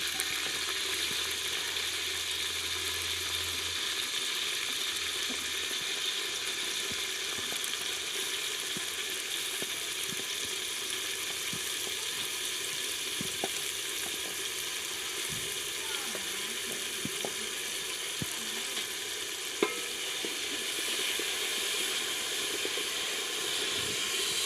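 Chopped onions frying in hot cooking oil in a sufuria, a steady sizzle, with a few light clicks of stirring and one sharper knock about three-quarters of the way through.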